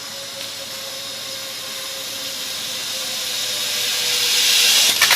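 Zipline trolley pulleys running along the cable as a rider comes down: a hissing whine with a faint steady tone that grows louder as the rider approaches, then stops abruptly near the end.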